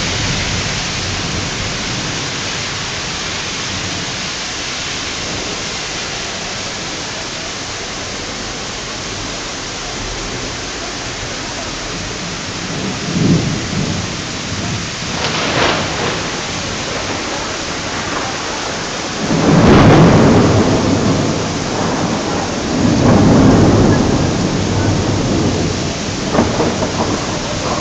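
Heavy rain falling steadily, with several rolls of thunder in the second half; the loudest comes about two-thirds of the way through and is followed by another long rumble.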